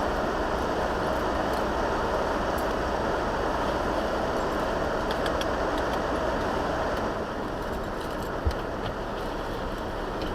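Steady road noise of a truck driving in the rain, heard from inside the cab: a dense rumble and hiss with scattered faint ticks. It eases slightly about seven seconds in, and a single short thump comes about eight and a half seconds in.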